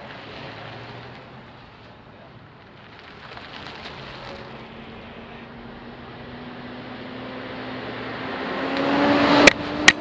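A car's engine and tyres close by, the engine note rising slowly and growing louder over several seconds. Near the end come a few sharp knocks as the camera is moved.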